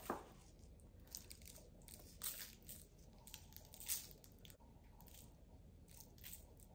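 Faint rustling and crinkling of parchment paper and rub-coated raw spare ribs being handled and flipped on a sheet pan. A few slightly louder rustles come about two and four seconds in.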